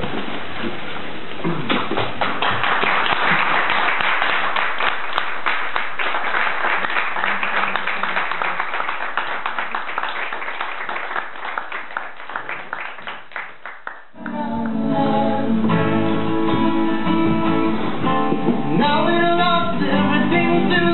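Audience applause, a dense patter of clapping that thins out and dies away over about fourteen seconds. Then two acoustic guitars start playing, with singing over them.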